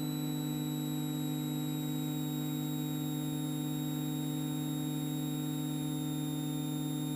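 Extra EA-200 aerobatic plane's engine and propeller droning steadily at climb power just after takeoff, a constant hum with faint high whines above it.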